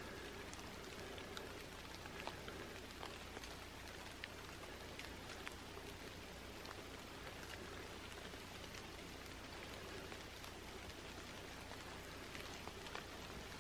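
Light rain falling: a faint, steady hiss with scattered drops ticking irregularly.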